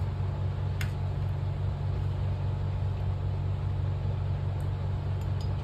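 A steady low mechanical hum, with one light click a little under a second in.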